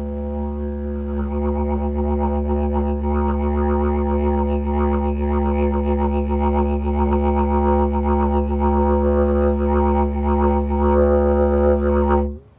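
Lightweight didgeridoo droning on one low note, with rhythmic pulsing overtones coming in about a second in and growing louder. The drone stops suddenly near the end.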